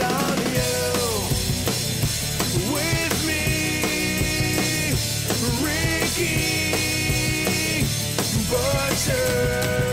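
Rock music with a drum kit keeping a steady beat under a lead line that slides up into long held notes about three, six and nine seconds in.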